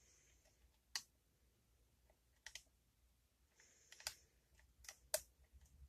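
Lock pick and tension wrench working the pins of a Yale pin-tumbler lock: a handful of faint, sharp metal clicks a second or so apart, against near silence.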